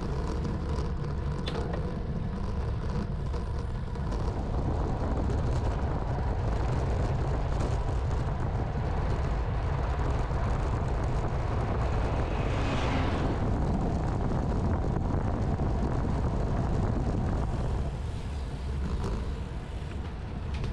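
Wind noise buffeting the microphone of a bike-mounted camera while a road bike is ridden. About two-thirds of the way through there is a brief louder rush as a bus passes. The wind noise eases near the end.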